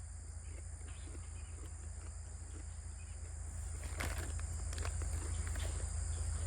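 Crickets chirring steadily over a low hum, with a few faint crunches about four to five and a half seconds in from chewing a raw 7 Pot Douglah superhot pepper.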